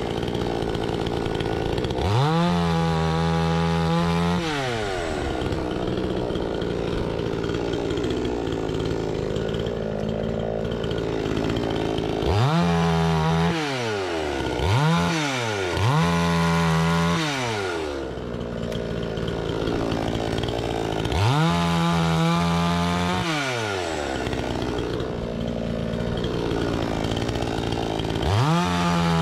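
Two-stroke chainsaw cutting firewood. The engine runs between idle and full throttle, revving up and holding high about six times, then dropping back each time.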